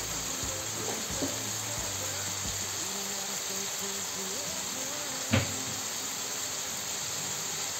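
Diced chicken and onion sizzling in a frying pan, a steady hiss, with one sharp click about five seconds in. Faint music plays underneath.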